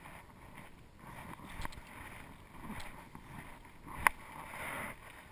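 Small water lapping in shallow water, with wind on the microphone, while a fly rod is cast. A sharp click about four seconds in is the loudest sound, with a fainter one just before the two-second mark.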